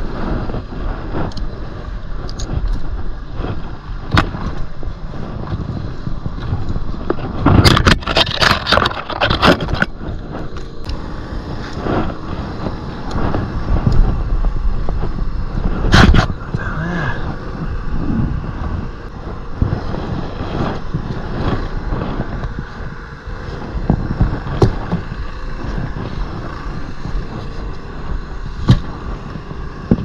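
Wind rumbling over a head-mounted camera microphone high in a tree, with scattered clicks, knocks and rustles as the climber handles the rope and metal rigging hardware (pulley and carabiners) and brushes through branches. A burst of crackling rustle comes about eight seconds in, and a sharp knock on the camera about sixteen seconds in.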